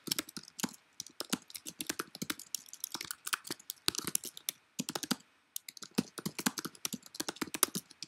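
Typing on a computer keyboard: a fast, uneven run of key clicks, with a short break a little past five seconds in.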